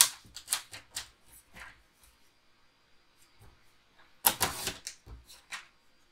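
Clicking and rustling of cardstock being handled and worked on a craft table, in a string of short taps, with a louder rustling cluster about four seconds in.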